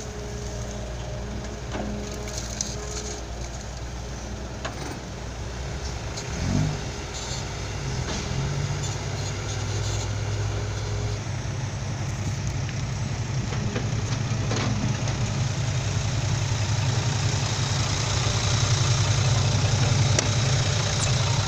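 Diesel truck engine running, growing steadily louder from about eight seconds in.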